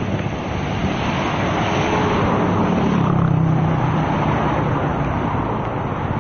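Road traffic noise with a motor vehicle's engine running, its low rumble swelling about three seconds in and then easing off.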